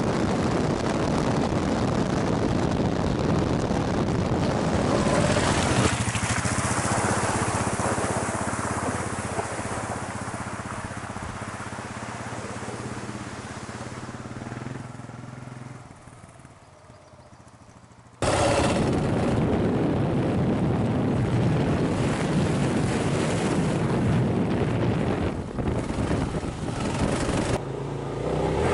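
Kawasaki KLR650's single-cylinder engine running while riding a dirt track, mixed with heavy wind rush on the camera. About six seconds in this gives way to the engine heard from off the bike, fainter and steadier, fading almost away before loud riding noise cuts back in suddenly about eighteen seconds in.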